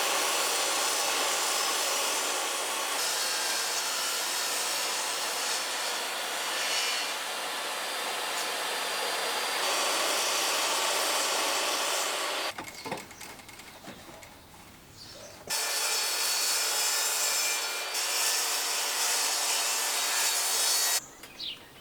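A saw cutting plywood, a steady rasping cut in two long runs with a break of about three seconds between them.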